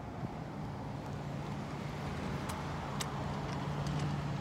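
Road traffic: a vehicle's engine hum swells and then eases off, with a few faint clicks on top.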